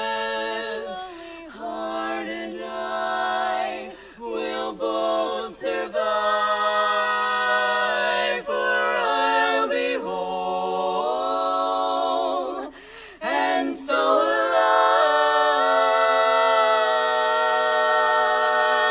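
Women's barbershop quartet singing a cappella in close four-part harmony, the chords shifting every second or two, then settling into one long held chord that cuts off near the end.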